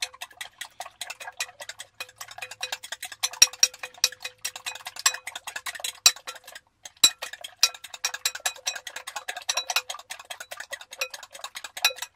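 Two eggs being beaten by hand in a bowl: a utensil clicks rapidly against the side of the bowl, with a short pause about six seconds in and then one sharper knock.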